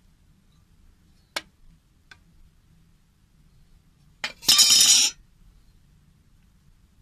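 Thin corrugated iron sheet being handled: a sharp metallic click, a faint tick, then a loud metallic rattle and scrape lasting just under a second as the sheet is moved.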